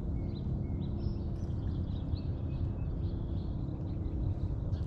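Outdoor ambience: small birds chirping faintly and repeatedly over a steady low rumble.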